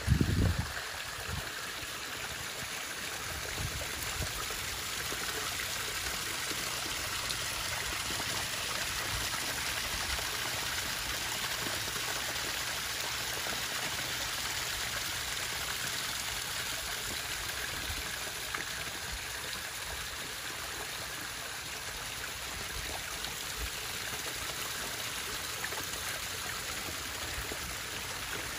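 Steady running, trickling water at a koi pond, even throughout. A brief low bump at the very start is the loudest moment.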